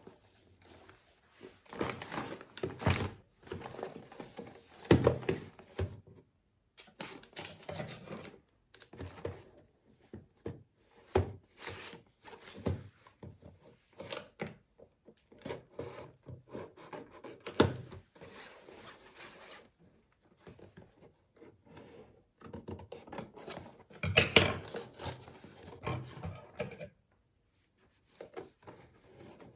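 Irregular handling sounds: clicks, knocks and rustling as a plastic clothing tag gun and garments are worked by hand on a surface.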